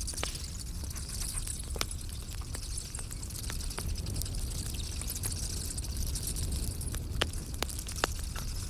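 Campfire crackling: a steady low rustle and hiss with scattered sharp pops, the sharpest in the last couple of seconds.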